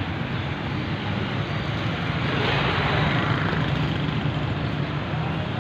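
Street traffic noise: a steady engine rumble with one vehicle passing closer and louder about two to three seconds in.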